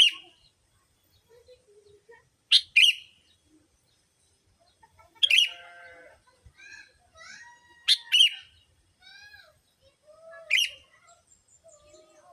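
Sooty-headed bulbuls (kutilang) calling, as used for a bird lure. A loud, sharp call comes about every two and a half seconds, some of them doubled, with softer whistled chirps and glides between.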